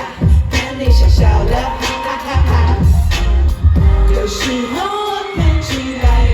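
A pop song played loud over a live stage sound system, with a heavy, pulsing bass beat, drum hits and a woman singing the melody.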